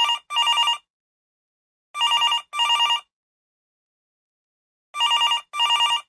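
Old telephone ringing in double rings, ring-ring. There are three pairs of short rings, about three seconds apart.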